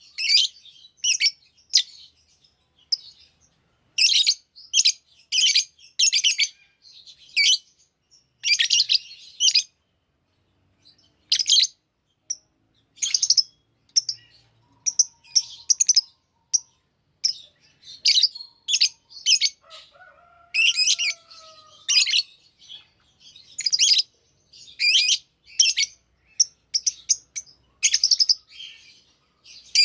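Lovebirds chirping: short, sharp, high-pitched chirps in quick clusters with brief pauses between them.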